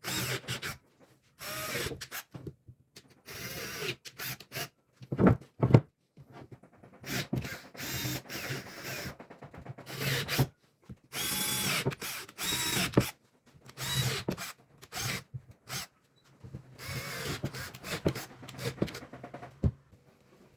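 Handheld power tool run on wood in many short bursts of one to two seconds, each starting and stopping abruptly, some carrying a steady motor whine.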